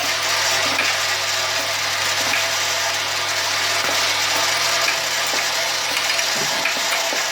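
Automatic oil seal assembly machine running: a steady mechanical hiss over a low hum, with light clicks scattered through it.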